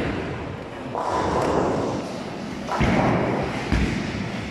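Bowling alley noise: heavy thuds of bowling balls and rumbling, clattering pin action from nearby lanes, coming in waves a second or two long with low thuds near the end.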